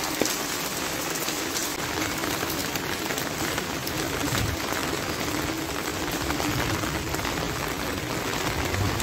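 Steady rain falling: an even hiss with many small drop ticks scattered through it.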